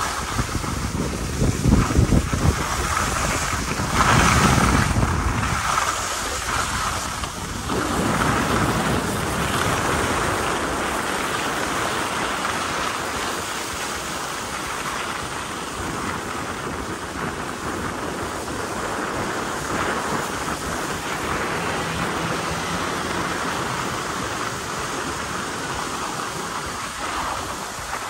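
Skis sliding and scraping over groomed snow during a downhill run, with wind buffeting the microphone in heavy low gusts for the first several seconds, then settling to a steady rush.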